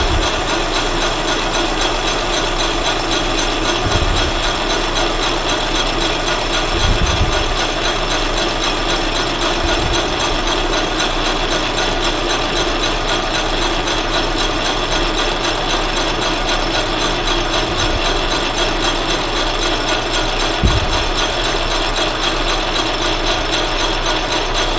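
Metal lathe running, its carbide insert facing tool taking a light facing cut across the end of a cold rolled steel bar and cutting well. There is a steady mechanical gear noise, with a few dull thumps.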